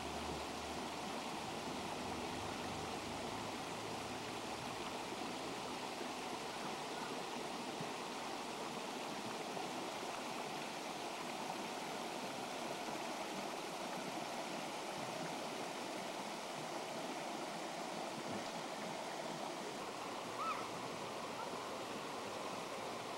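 Shallow mountain stream running steadily over rocks and riffles, with a brief sharper sound about twenty seconds in.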